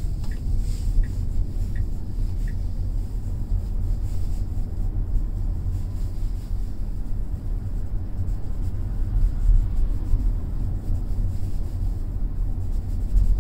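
Steady low road and tyre rumble inside an electric Tesla's cabin, driving at low city speed with no engine sound.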